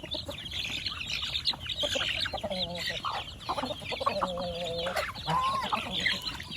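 Mixed flock of chickens, ducks and geese feeding together, clucking and calling: a constant chatter of short high chirps with a few longer calls, the longest about four seconds in.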